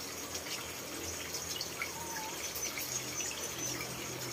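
Steady low background hiss with no distinct event in it.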